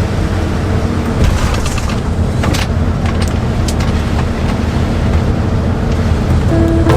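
Converted bus driving at steady speed: its engine drone and road noise heard from inside the cab, with a few short rattles or knocks.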